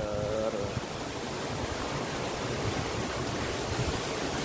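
River water rushing steadily over a small weir and down rocky rapids.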